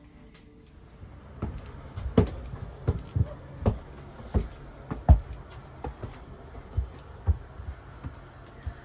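Footsteps climbing the stairs of a double-deck railway carriage, a heavy thud about every three-quarters of a second starting about a second and a half in, over a faint steady hum.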